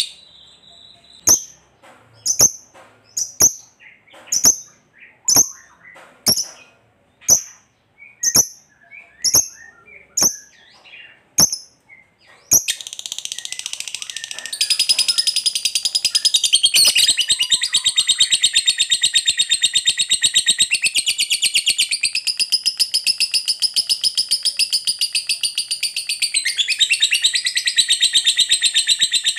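A lovebird gives sharp single chirps about once a second, then breaks into a long, unbroken rapid chattering trill, the prized 'ngekek panjang' call.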